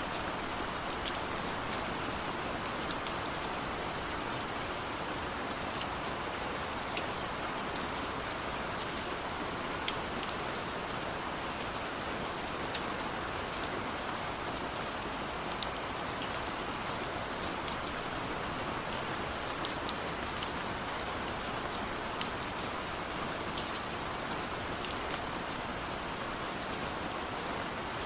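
Steady rain: a dense, even hiss with scattered sharp ticks of single drops.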